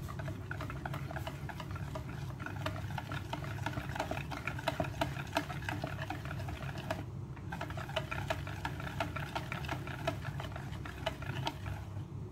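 Wire whisk beating a thin flour batter in a bowl: rapid clicking and tapping of the wires against the bowl's sides, with a brief pause about seven seconds in.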